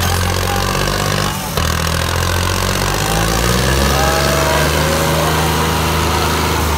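Diesel engines of a John Deere 5310 and a Swaraj 855 tractor running hard under full load as the two tractors, hitched back to back, pull against each other. It is a steady, loud engine drone with a brief dip about a second and a half in.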